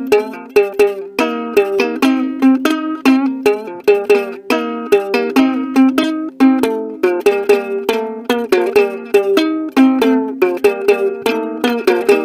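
Ukulele played without singing: a quick, steady run of plucked notes, many sharp attacks a second.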